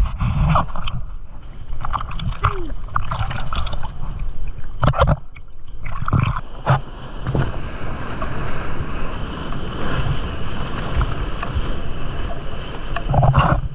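Seawater splashing and sloshing around a camera at water level in the surf, with several sharp splashes in the first half, then a steady rush of surf and wind on the microphone.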